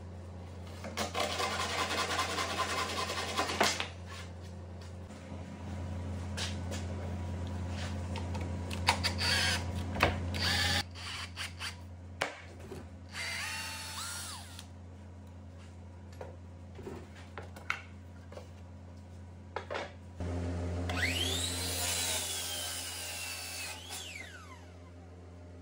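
Power-tool work in a woodshop: a cordless drill with a countersink bit runs into wood. Near the end a miter saw's motor spins up and winds down, its whine rising and then falling.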